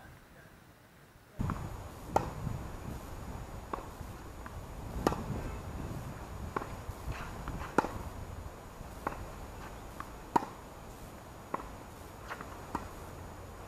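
Tennis rally: sharp pops of rackets striking the ball, with softer ball bounces on the hard court, coming about every one to one and a half seconds and starting after a second or so. Louder and softer hits alternate over a steady low outdoor rumble.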